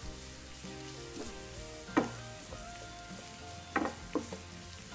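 Diced carrots and green beans sizzling in oil in a frying pan while being stir-fried with a wooden spatula, which knocks against the pan once about two seconds in and twice near the end.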